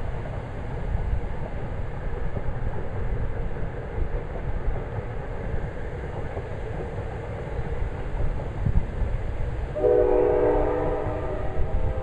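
Gusty wind buffeting the microphone, with a distant train horn sounding a chord of several notes from about ten seconds in.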